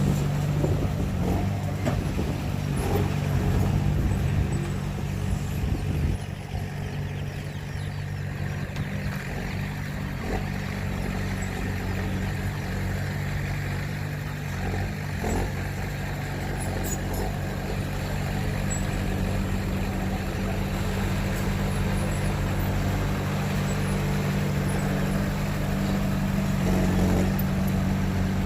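Heavy diesel engine of a dump truck or bulldozer running steadily at a constant speed, with a few scattered knocks over it.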